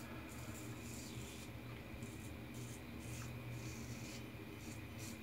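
Faint, repeated rubbing and rasping strokes of a wet shave, several a second, over a steady low hum.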